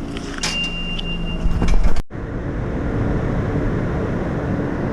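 A high electronic beep lasting about a second, with some clatter. After an abrupt cut comes the steady rumble of a subway train running.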